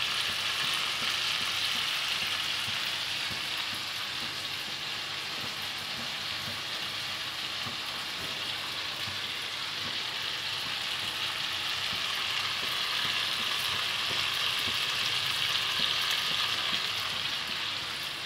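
Minced-meat kofta balls shallow-frying in oil in a pan, a steady sizzle.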